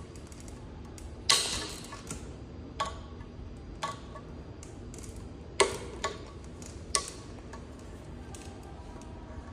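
Scattered sharp clicks and knocks of tools and metal parts being handled during a scooter motor repair, the loudest about a second in and twice more near the middle.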